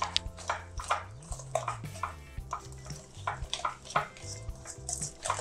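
Wire whisk beating a thick batter in a stainless steel bowl, with repeated irregular clicks and scrapes of the wires on the metal, over soft background music.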